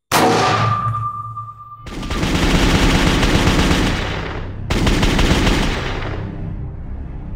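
Outro sound effect of automatic gunfire over music: a sudden hit, then two long rattling bursts of rapid fire, the second fading out.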